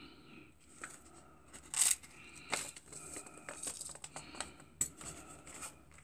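Quiet rustling and crinkling of paper seed packets being handled, with light clicks and taps of small objects on the table.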